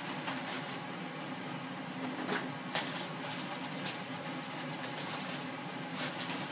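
Plastic zip-top bag crinkling and rustling in irregular bursts as flour-coated chicken wings are shaken in it and pulled out, over a low steady hum.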